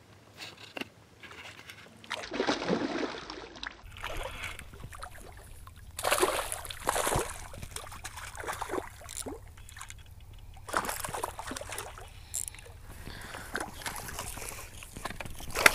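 Hooked smallmouth bass thrashing at the surface in shallow water beside a rocky shore, giving irregular bursts of splashing and sloshing, the loudest about two to three seconds in and again around six seconds in.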